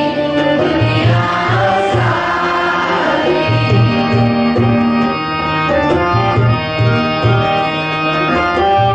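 Devotional prayer music: a tabla plays a repeating rhythmic pattern under long, held melodic tones.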